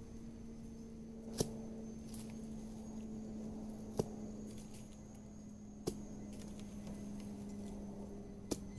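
Four sharp knocks, spaced about two to three seconds apart, over a steady low hum.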